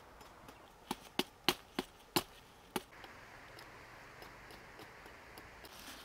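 Knife chopping greens: six sharp chops in the first three seconds, about a third of a second apart. After them comes a steady soft hiss.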